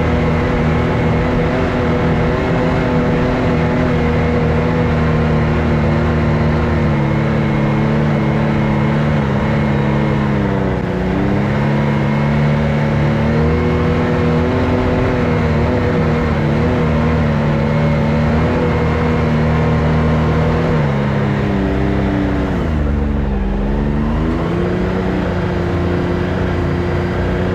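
Can-Am X3 side-by-side engine running under way at steady revs. Twice the revs drop and pick back up: once about ten seconds in, and again more deeply about three-quarters of the way through.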